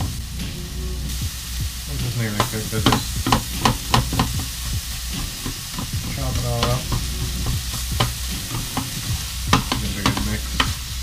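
Pollock fillets sizzling steadily as they fry in oil in a non-stick frying pan, while a slotted spatula stirs and breaks them up, giving repeated scrapes and knocks against the pan.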